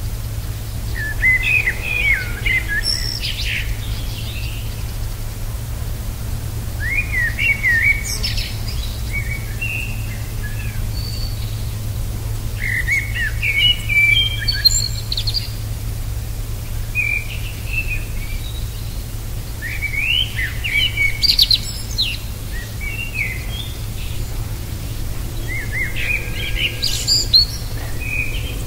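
A songbird singing five short, varied phrases of quick chirps and whistles, about six seconds apart, over a steady low hum.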